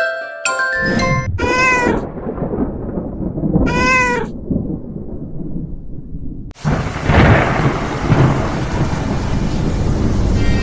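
Thunderstorm: rumbling thunder and rain, with a cat meowing twice, about a second and a half and four seconds in. A loud thunderclap breaks in about six and a half seconds in, and heavy rain and thunder follow.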